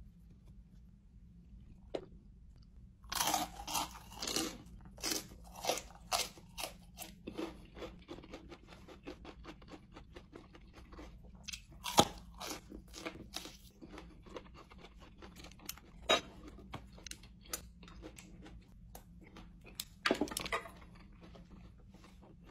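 Close-up crunching and chewing of raw chili peppers, crisp bites and mouth clicks. They are densest from about three to eight seconds in, then sparser, with one sharp loud bite about twelve seconds in. A short rushing noise comes near the end.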